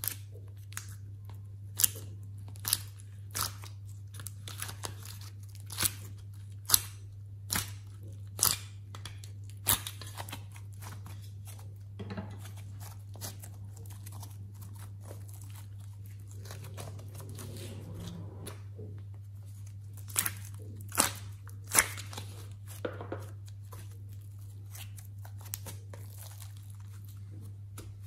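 Slime being handled, stretched and squeezed, giving sharp crackling pops at about one a second, then a quieter, softer spell, then a few more pops about two-thirds through. A steady low hum runs underneath.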